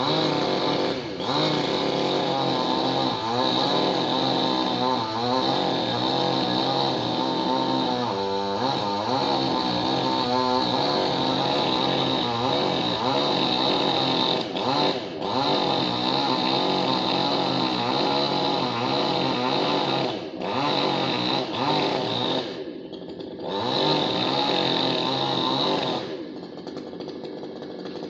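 Chainsaw engine running at high revs while cutting, its pitch dipping and recovering again and again as the chain bites into the wood. The throttle eases off briefly a few times, and the saw drops to a quieter run near the end.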